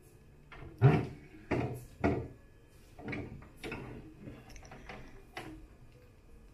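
Wine fridge's wire bottle shelf being handled and slid, with knocks and rattles of the rack and bottles: three loud knocks about a second in, then a run of lighter clatter.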